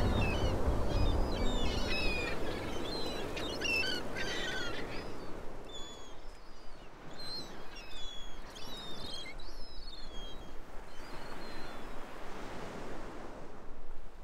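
Birds chirping in short, repeated calls over a soft outdoor ambience, a sound-effect bed. A low drone fades out about two seconds in, and a soft wash like surf swells near the end.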